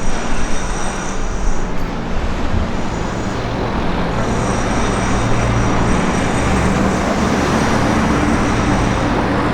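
Steady traffic rumble on a city street, growing a little louder about four seconds in.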